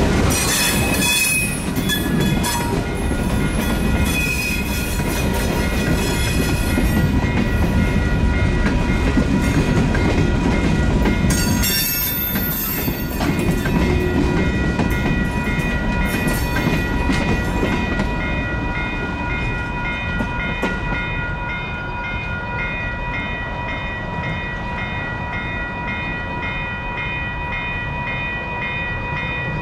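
Freight cars (covered hoppers and gondolas) rolling past on jointed track, wheels rumbling and clacking, the sound thinning out and dropping off about two thirds of the way through as the last cars clear. A crossing warning bell rings on in a steady repeating pattern over it.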